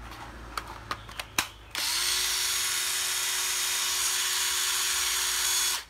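A few sharp clicks, then a National 12V cordless drill-driver's motor runs at a steady speed with an even whine for about four seconds and stops abruptly.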